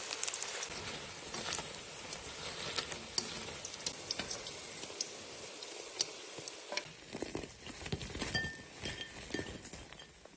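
Batter fritters sizzling and crackling as they deep-fry in hot mutton fat. A few low knocks in the pan come near the end.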